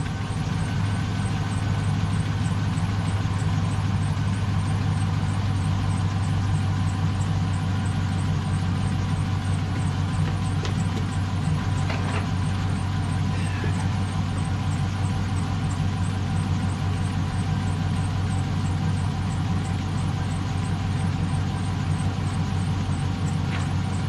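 GMC pickup's gasoline engine idling steadily, a low even hum.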